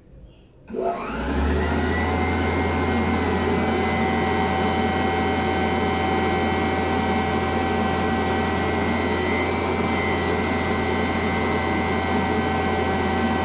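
Wall-mounted electric hand dryer switching on less than a second in. Its motor whine rises in pitch as it spins up, then it blows steadily with an even whine and a low hum.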